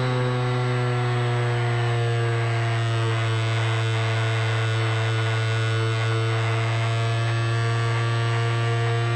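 Drone motors and propellers humming steadily, heard through the onboard camera: a low hum with a stack of overtones whose pitch shifts slightly as the aircraft banks.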